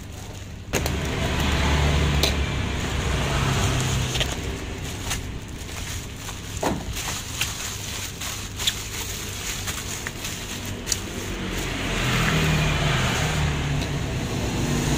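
Plastic bubble wrap crinkling and crackling in scattered sharp clicks as it is peeled off a parcel by hand. Under it a low steady rumble swells from about a second in to nearly four seconds, and again near the end.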